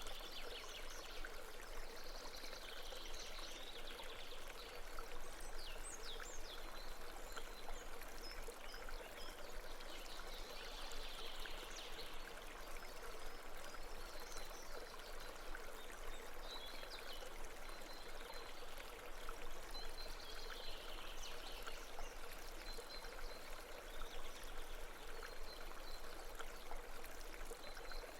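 Babbling brook: a steady rush of running water trickling and splashing.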